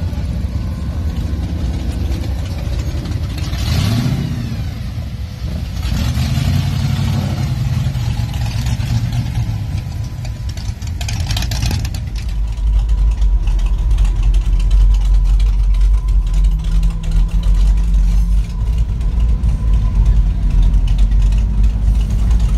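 Engine of a lifted Ford monster truck revving as it drives past, with several rising pitch sweeps. About halfway through, a louder, steady deep rumble takes over.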